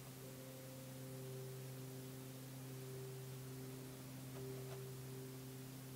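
Faint ambient drone music: a steady low held tone with softer higher notes fading in and out over it.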